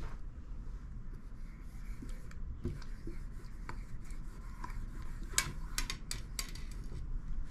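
Broad felt tip of a 10mm dripstick marker, loaded with alcohol-based paint, rubbing across a bare metal sheet as a tag is written, with a few sharp ticks a little past halfway.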